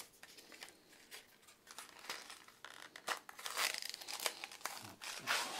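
Crinkling of a small plastic packet and light clicks and taps from a plastic dropper bottle of hobby paint being handled while a mixing ball is put into it.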